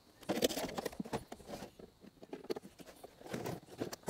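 Hollow plastic knocks and clunks as a compact Keurig coffee maker is handled and set down on a table, with scattered lighter clicks. The knocks come irregularly; the loudest are about half a second in and right at the end.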